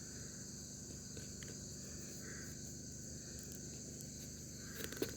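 Steady, high-pitched chorus of insects in the woods, several shrill tones sounding together without a break. A few brief clicks come just before the end.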